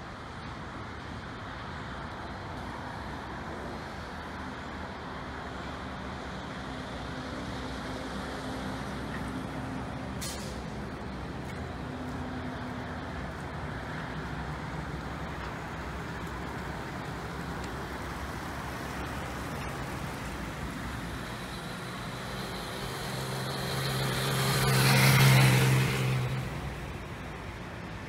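Steady urban traffic noise. Near the end a motor vehicle passes close by, its sound swelling for a couple of seconds, peaking, then fading quickly.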